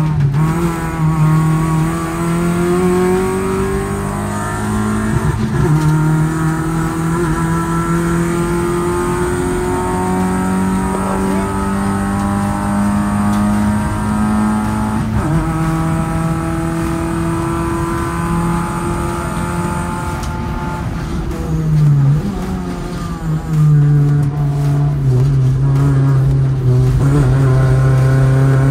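Car engine running under load through the gears: its note climbs slowly and drops suddenly at each shift, about 5, 15 and 22 seconds in, then holds steady.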